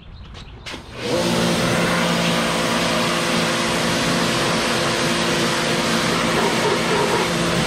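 A pressure washer starts suddenly about a second in and runs steadily, a motor hum under the hiss of the water spray.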